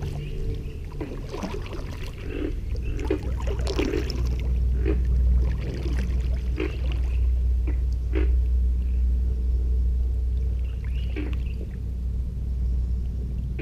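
Kayak paddle strokes dipping, splashing and dripping in calm water, over a deep steady low rumble that swells about four seconds in and eases off near the end.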